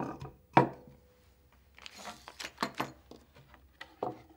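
Wooden mounting bracket boards and a plywood panel being set down and shifted on a wooden workbench: a sharp knock about half a second in, a run of smaller clicks and knocks in the middle, and another knock near the end.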